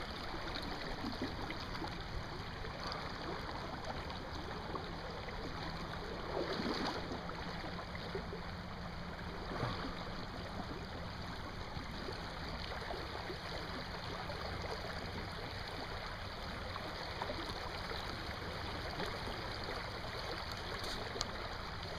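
River water running steadily, with a couple of brief louder moments about six and a half and nine and a half seconds in.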